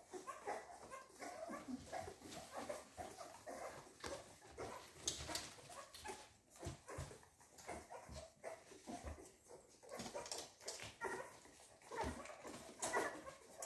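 A litter of American Staffordshire Terrier puppies nursing and jostling for their mother's teats, giving many short, faint squeaks and whimpers.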